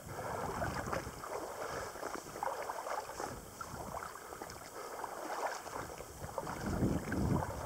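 Water sloshing and splashing around waders as a person wades through flooded marsh, in an uneven rhythm, with a heavier slosh near the end.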